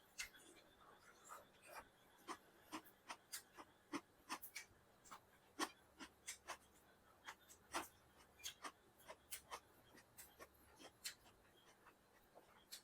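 Quiet eating sounds from a meal of chicken biryani: soft, irregular clicks and smacks of chewing, about two or three a second.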